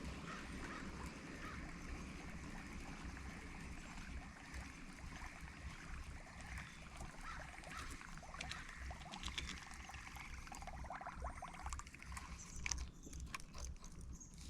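Water trickling and lapping around a kayak, with a low rumble throughout and a quick run of sharp clicks near the end.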